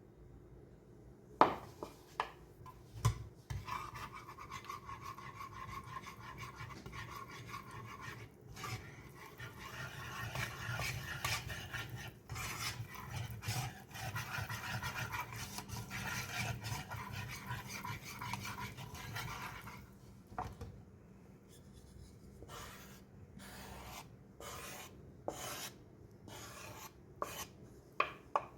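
Rubbing and scraping of hand food preparation. There are a few sharp knocks about a second and a half in, a long stretch of steady rubbing through the middle, and scattered knocks and short scrapes near the end.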